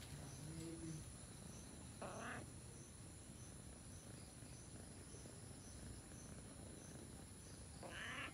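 Faint insect chirping: a steady high trill with a soft pulse about twice a second. Two brief rustles come about two seconds in and near the end.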